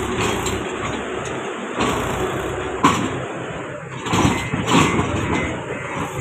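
Mahindra 275 DI tractor engine running while its raised tipping trolley dumps a load of wet mud, the mud sliding out in several heavy thuds, with a sharp knock about three seconds in.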